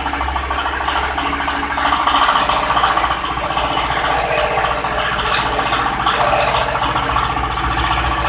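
Palm sugar grinding machine running steadily, a loud continuous mechanical whir over a low drone; the drone shifts a little after two seconds in.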